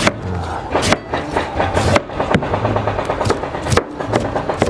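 Kitchen knife mincing julienned radish and pear on a cutting board: irregular sharp strikes of the blade on the board, over a steady background of music or mechanical noise.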